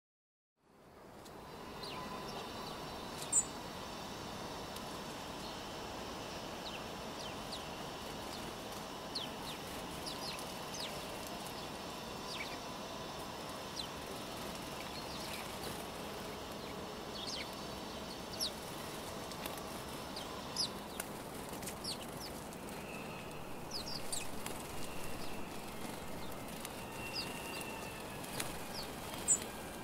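A flock of house sparrows chirping at a seed feeder: many short, sharp chirps and squabbling calls with wing flutters, busier near the end. Steady city background noise runs underneath.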